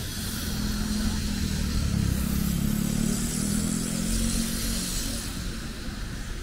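A motor vehicle engine passing close by: it grows louder about a second in and fades after about five seconds, over steady street hiss.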